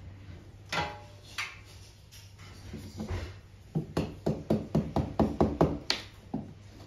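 A hammer tapping quickly at a plastered wall corner to chip away the plaster and corner strip: a run of about a dozen short strikes at roughly five a second, after two louder knocks near the start.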